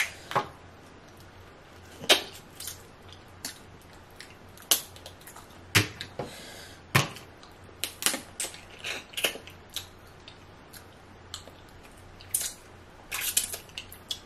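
Eating sounds of boiled crawfish being pulled apart and eaten by hand: irregular sharp cracks and clicks of the shells, with wet mouth sounds.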